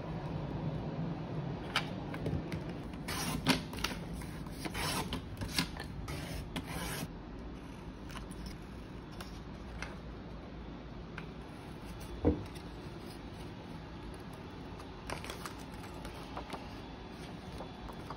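Hands rubbing and handling paper and card stock: a run of short scratchy strokes between about three and seven seconds in, a single sharp tap about twelve seconds in, and a few more strokes near the end, over a steady low hum.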